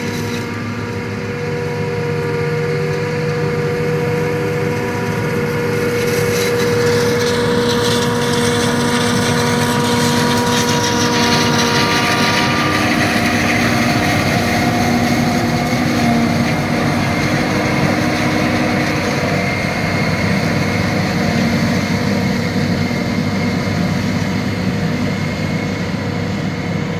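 Versatile RSM 1403 self-propelled forage harvester chopping maize, its engine running steadily under load together with the chopper and blower, mixed with the John Deere 6520 tractor pulling the trailer alongside. It grows louder as the harvester comes close, and a hissing rush builds from about six seconds in.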